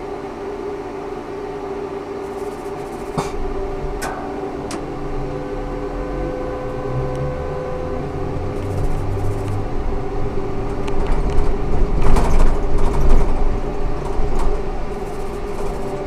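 Ikarus 280T trolleybus running, with a steady electrical hum under a low rumble that builds and peaks about three quarters of the way through with rattling. A few sharp clicks or knocks come near the start.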